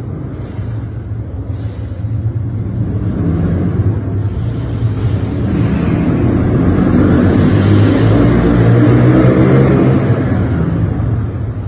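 A vehicle running, with a steady low rumble and hiss that swell louder about halfway through and ease off near the end.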